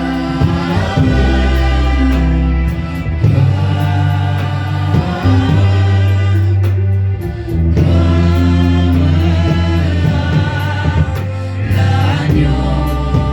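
Gospel worship music with a choir of voices singing over a heavy sustained bass line.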